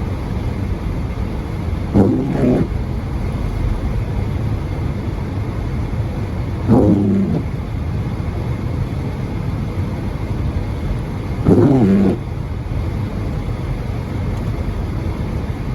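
Steady car-cabin road and engine noise while driving, with a short pitched squeak-groan three times, evenly about five seconds apart: windshield wipers on intermittent, the blades dragging across the glass.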